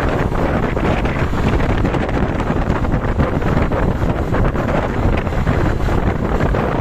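Steady wind buffeting the microphone over a low vehicle rumble, with no horn sounding.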